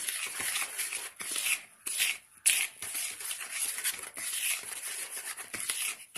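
Dry cake ingredients (flour, cocoa powder, sugar, baking soda and baking powder) being stirred together in a mixing bowl: repeated scraping strokes of the utensil through the powder against the bowl, with a sharper tap about two and a half seconds in.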